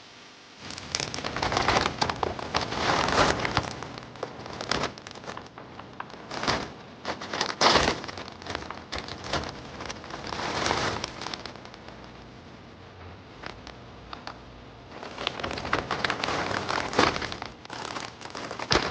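Irregular crinkling and rustling in bursts of a second or so, with a quieter stretch a little past the middle.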